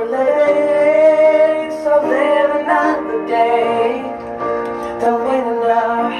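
A song: a voice holds a long note, then sings shorter sliding notes over a steady chordal backing, without clear words.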